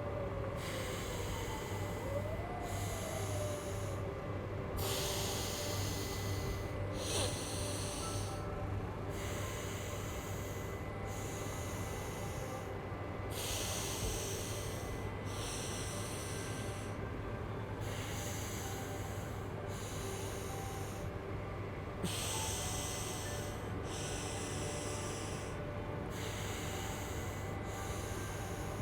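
A person breathing slowly and audibly through one nostril at a time in alternate-nostril breathing (anulom vilom pranayama), each inhale or exhale a hiss of a second or two with short pauses between. A low steady hum runs underneath.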